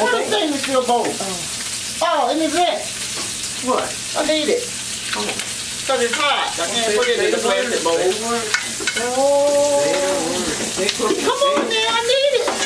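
Stuffed crabs sizzling as they fry in a cast-iron skillet, with a fork and metal spatula scraping and turning them in the pan. Indistinct talking underneath.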